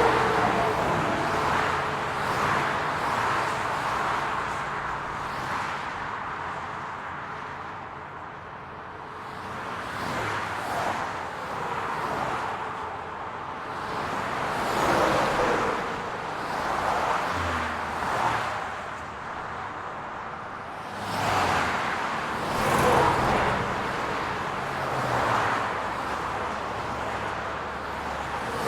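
City street traffic: cars passing one after another, each swelling and fading over a few seconds, over a steady hum of road noise.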